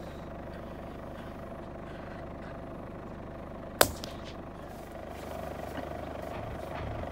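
A single rifle shot about four seconds in, sharp and very short, over the steady low hum of a vehicle engine idling.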